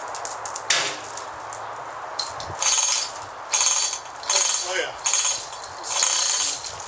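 A ratchet clicking in short strokes, about one a second, each a quick run of clicks.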